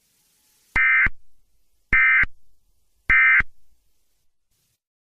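Emergency Alert System end-of-message (SAME) data tones: three short bursts about a second apart, each starting and stopping abruptly. They signal the end of the alert.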